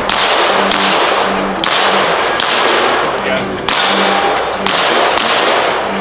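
Background music with a heavy, noisy beat that hits about once a second.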